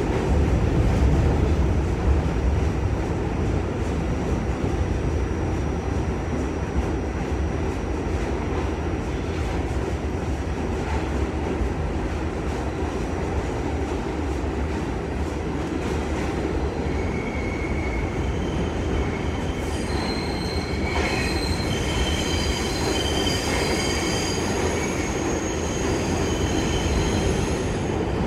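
R46 New York subway car running at speed, heard from inside the car: a steady loud rumble of wheels on track. From a little past halfway, high-pitched wheel squeal comes and goes in several tones over the rumble.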